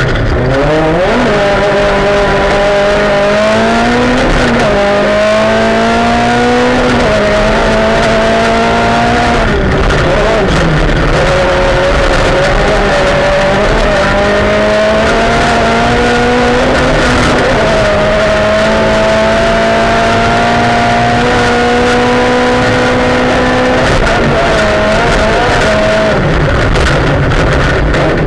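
Rally car engine heard from inside the cabin at speed, its pitch climbing and dropping with gear changes every few seconds, over the noise of tyres on a gravel road.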